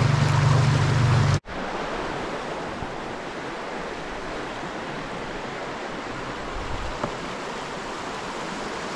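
Steady rush of stream water running through a riffle. For the first second or so a louder rush with a low rumble underneath is heard, and it cuts off abruptly, leaving the even sound of the flowing stream.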